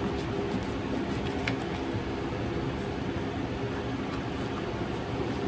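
Steady mechanical hum of kitchen refrigeration or ventilation equipment, with a single light click about one and a half seconds in.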